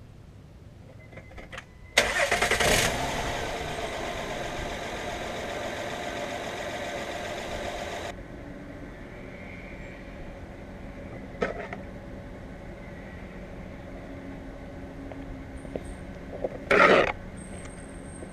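A 2013 Honda Pilot's 3.5-litre V6 is started after an oil change. It catches about two seconds in, runs loudly at first, then settles to a quieter steady idle from about eight seconds in. There is a click midway and a short loud thump near the end.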